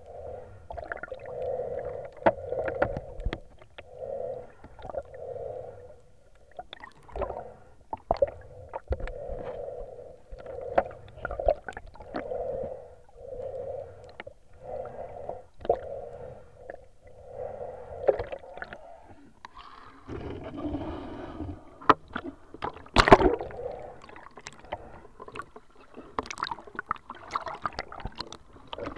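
Muffled underwater sound picked up by a submerged action camera: water surging against the housing in a pulsing rhythm of about one surge a second, with scattered clicks and knocks. Near the end it grows louder and busier, with one sharp knock.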